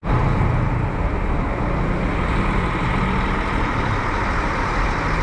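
Steady rumble and hiss of a running vehicle, even throughout with no changes.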